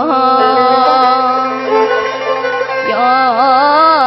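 Azerbaijani mugham-style singing: a voice holds one long wordless vowel, then breaks into quick warbling trills (tahrir) near the end. A steady low note sounds underneath.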